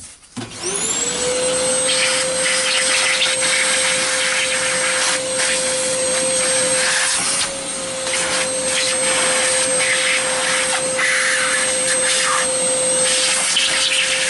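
Electric vacuum cleaner motor spinning up about half a second in, then running steadily with a constant whine over an airflow hiss that swells and fades as the nozzle moves. It is sucking metal dust off an angle grinder's field coil.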